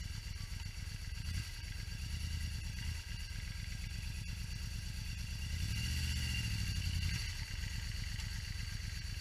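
Motorcycle engine idling with a low, even pulse. About five and a half seconds in the revs rise a little and hold for about a second and a half before dropping back to idle, as the throttle is opened against a slipping clutch to ease the front wheel up against a curb.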